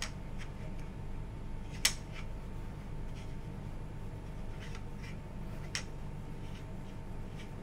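Wet cotton bud rubbing over the surface of an agar plate in a plastic petri dish to collect spores. It makes a few soft scratchy strokes, with sharp light clicks of the plastic dish, the loudest about two seconds in, over a steady low hum.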